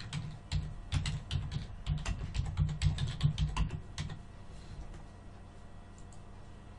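Computer keyboard typing: a quick run of key presses for about four seconds, then it stops.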